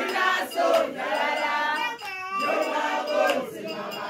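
A small group of women singing a celebratory chant together close to the microphone, voices held on long notes, with a brief break about halfway through.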